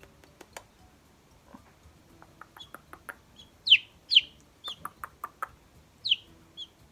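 Silkie chicks peeping: a few short, falling chirps, the loudest about four seconds in, with faint scattered clicks.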